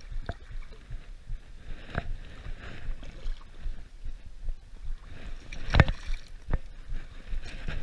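Rumbling handling noise on a body-worn action camera as a fish is reeled in from the shore, with scattered clicks and knocks and one loud thump about six seconds in.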